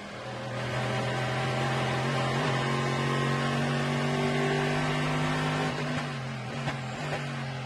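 Corvette C6.R race car's V8 engine under hard acceleration, heard from an onboard camera on the car; the engine note climbs steadily for about five seconds, then drops back in pitch and level about six seconds in.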